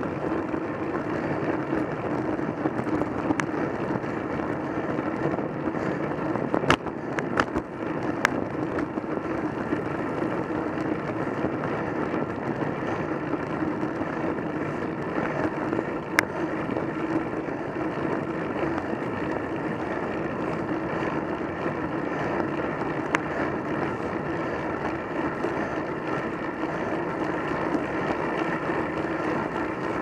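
Steady rolling noise of a road bike heard through its bike-mounted camera: tyre and road rumble on tarmac mixed with wind rush. A few sharp knocks cut through, a cluster about seven to eight seconds in and one more near sixteen seconds.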